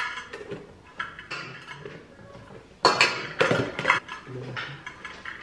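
Measuring cup and utensils clinking and knocking against a mixing bowl as plain flour is scooped and tipped in for bread dough, a handful of sharp knocks with the loudest cluster about three seconds in.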